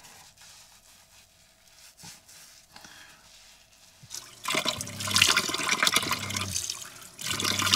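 Kitchen faucet running into a sink, with water splashing as it is scooped up by the hands for a face wash. It starts suddenly about halfway through and briefly dips near the end before running again.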